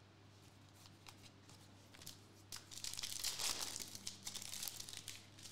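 Foil wrapper of a 2021-22 Panini Donruss Elite card pack crinkling as it is torn open by hand, starting about two and a half seconds in and loudest in the middle of the tear.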